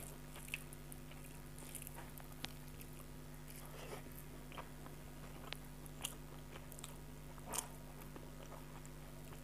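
Faint chewing and mouth sounds of a person eating rice mixed with soft ash gourd ghonto by hand, with scattered soft clicks and wet smacks, the loudest about seven and a half seconds in. A faint steady hum lies underneath.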